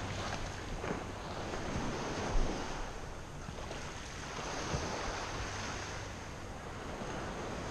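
Surf washing on the shore, swelling and easing, with wind buffeting the microphone. A brief thump comes about two and a half seconds in.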